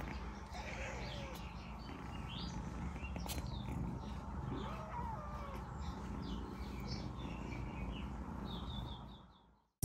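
Young Ragdoll kittens mewing and making short high chirps, over a steady low hum; the sound fades out near the end.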